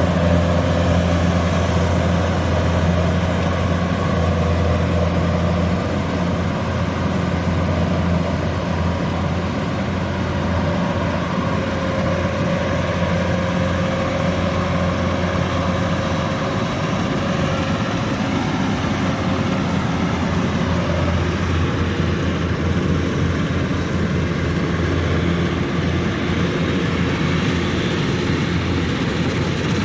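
Kubota DC-105X rice combine harvester running steadily as it harvests, a constant engine drone. Its tone shifts a little about twenty seconds in.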